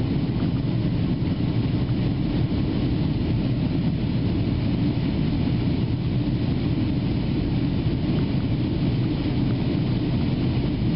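Steady low cabin drone of a Boeing 757-224's Rolls-Royce RB211 engines and rushing air, heard inside the cabin over the wing during the climb after takeoff.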